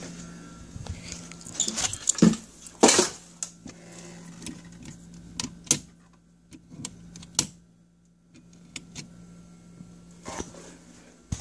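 Scattered clicks, knocks and rustles of things being handled, over a steady low hum; the louder knocks come in the first few seconds.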